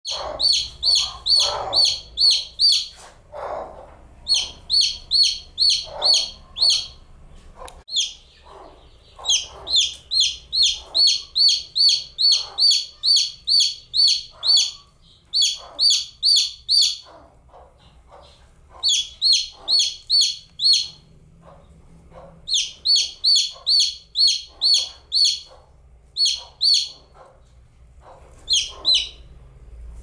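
Baby chicken chick peeping: high-pitched peeps at about two to three a second, in runs of several with short pauses between them.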